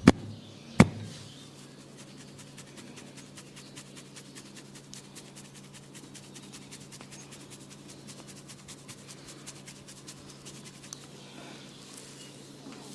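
Head massage: two sharp slaps within the first second, then a long run of quick, faint, even tapping clicks over a steady low electrical hum.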